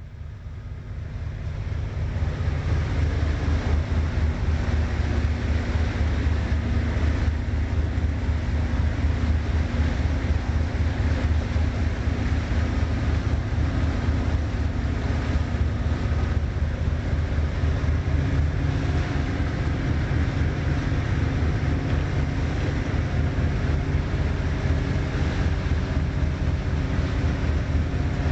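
Engines of a twin-screw llaut motor boat running steadily under way, a deep hum that fades in over the first couple of seconds, with wind buffeting the microphone and water rushing past the hull.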